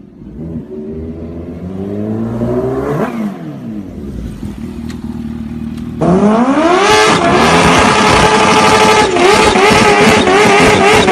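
A motorcycle engine revs and passes by about three seconds in, its pitch falling away as it goes. About six seconds in, a much louder engine comes in abruptly, climbs in pitch and holds steady at high revs.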